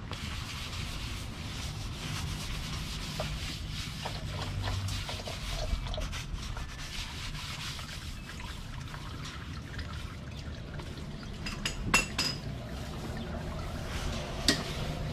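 Engine oil draining from an air-cooled Porsche 911SC, trickling and dripping steadily into a plastic drain pan. A few sharp clicks come close together near the end, then one more.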